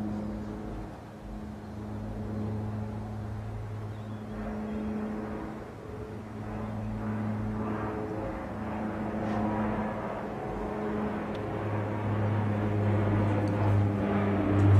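A steady low mechanical hum, with the rush of vehicle noise swelling and fading over it and growing louder near the end.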